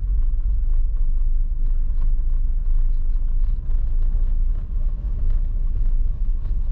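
A car driving, with a steady low road rumble and faint small ticks over it.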